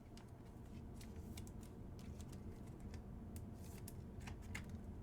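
Trading cards being handled and flipped through: faint scattered clicks and light slides of card on card, over a low steady hum.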